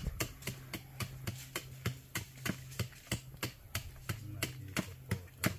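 A fast, even run of sharp clicks or taps, about four a second, over a low steady hum.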